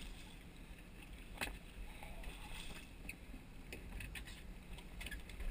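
Water splashing and sloshing beside a boat, where a hooked striped bass is thrashing at the surface, over a steady low rumble. A sharp knock about a second and a half in, and a few lighter clicks later on.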